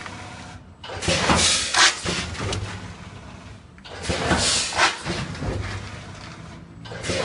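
Vertical form-fill-seal packing machine bagging rice into gusseted pillow bags, running in a steady cycle about every three seconds. Each cycle is a burst of clattering noise with sharp clicks, then a quieter stretch.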